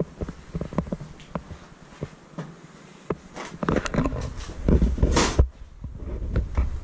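Footsteps with scattered clicks and knocks on a debris-strewn floor inside an abandoned rail car, then a few seconds of low rumbling and rustling, loudest just past the middle and stopping abruptly.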